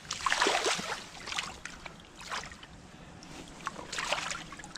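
Creek water splashing and sloshing in several short bursts, as a fish and hands are moved about in shallow water.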